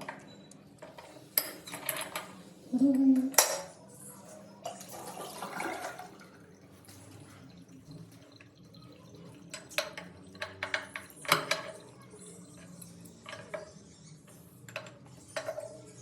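Metal tap parts being handled during tap disk maintenance: scattered sharp clinks and knocks, with a few louder strikes and brief stretches of water.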